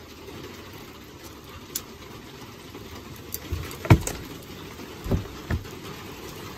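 Three dull wooden thumps, the first and loudest about four seconds in, as a hinged plywood storage-box lid is lowered shut by hand.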